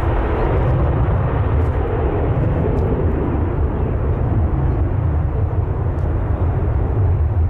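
Airplane engines heard steadily as an aircraft passes, a loud, even noise heavy in the low end.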